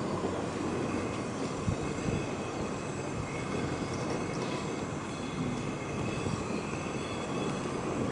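Pot of rice and soya-leaf sweet corn gravy boiling on a gas burner: a steady bubbling hiss, the rice cooking in the boiling water.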